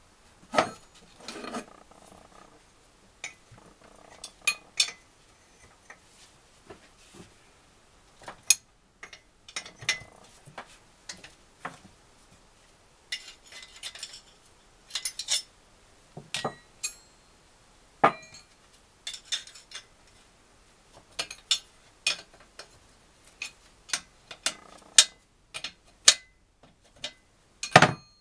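Irregular metallic clicks, taps and clinks of hand tools against the NSU Special Max 250 engine's casing and loose parts during disassembly, some with a short ringing tone.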